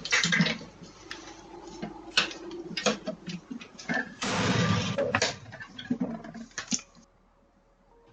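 Scattered knocks and clicks with a louder rustling scrape lasting about a second, starting about four seconds in, picked up by a doorbell camera's microphone. The sound cuts off about seven seconds in.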